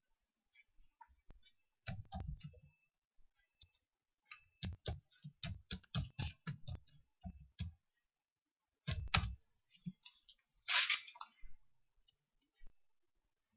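Computer keyboard typing: irregular runs of keystroke clicks separated by short pauses, with a short noisy burst near the end.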